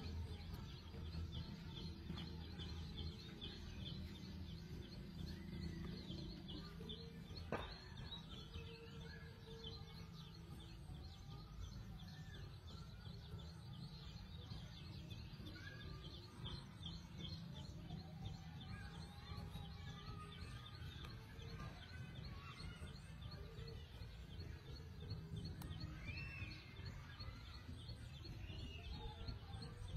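Faint rural outdoor ambience: a steady low rumble with small birds chirping and a fast, faint high ticking throughout, and one sharp click about seven and a half seconds in.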